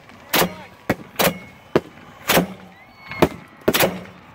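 Fireworks shells being hand-fired from a rack of mortar tubes: a rapid, uneven series of about seven sharp launch reports in four seconds, several with a low thud under them.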